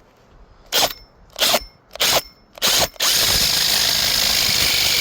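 Power drill with a wood bit: four short blips of the trigger, each about a quarter second long and roughly half a second apart, then from about three seconds in it runs continuously with a steady high whine as it drills.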